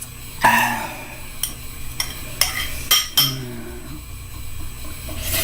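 Chopsticks clinking and scraping against a bowl of ramen: a string of sharp clicks, the loudest about half a second in.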